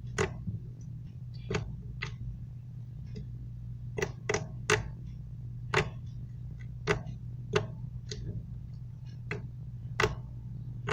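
Homemade slime being squeezed and kneaded by hand, giving about a dozen sharp clicks and pops at uneven intervals, over a steady low hum.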